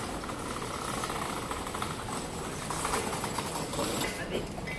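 Steady city street noise: a continuous din of traffic and surroundings with no single sound standing out.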